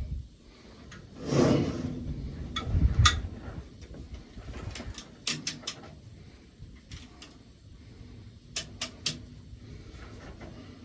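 Hand work on the metal parts of a round baler during a bearing repair: a short scraping noise about a second and a half in, then scattered sharp metallic clicks and clinks, two close together near three seconds and small clusters around five and nine seconds.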